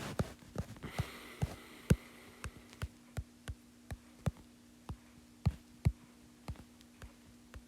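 Irregular sharp taps, about two or three a second and varying in loudness, from fingertips working a tablet touchscreen, over a steady low electrical hum.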